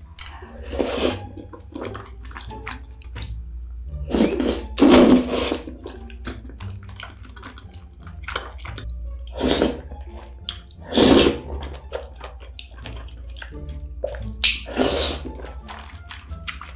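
Loud wet slurps as saucy tteokbokki rice cakes are sucked in off a fork, several over the stretch, with wet chewing and small smacking mouth clicks between them.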